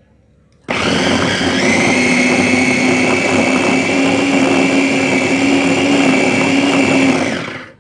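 Food processor motor running, chopping chicken breast and chicken skin into a fine paste. It switches on abruptly under a second in, its whine rising slightly in pitch a moment later, runs steadily for about six seconds, then winds down near the end.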